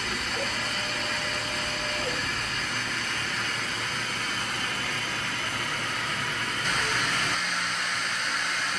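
Walter Helitronic Power CNC tool grinding machine running with a steady hissing noise, which grows louder and brighter about seven seconds in.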